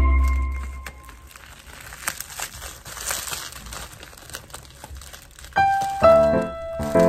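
Plastic bubble wrap crinkling with small irregular crackles as hands unwrap a bottle from it. Background music fades out in the first second and comes back about five and a half seconds in.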